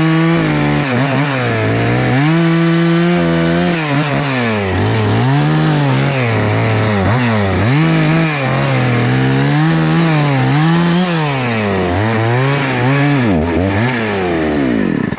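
Husqvarna 288 two-stroke chainsaw running, its engine pitch rising and falling again and again as it works in the wood. Near the end the engine sags and dies abruptly: the saw has run out of fuel.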